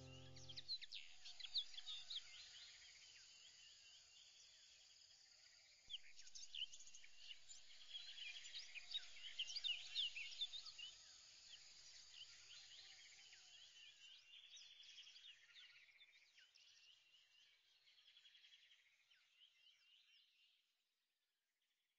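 Faint birdsong: many short, quick chirps and trills from several birds, thinning out and fading away near the end. A held music chord dies away about a second in.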